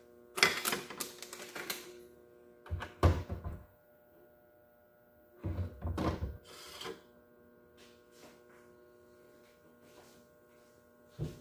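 Kitchen handling noises: a ceramic plate clattering on the countertop, then two dull thunks as the lid of a sandwich maker heating bread is worked. After them come a few light clicks and a short knock near the end, over a faint steady hum.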